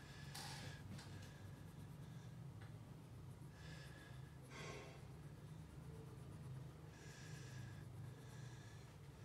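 Faint scratching of a wax crayon on paper as a picture is coloured in, coming in several short patches of strokes over a steady low hum.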